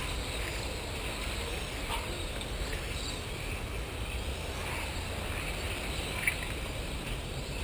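Track-side ambience of 1/10-scale electric RC Formula 1 cars running on an asphalt circuit: a steady low rumble with faint scattered ticks and whirs. One sharp click comes about six seconds in.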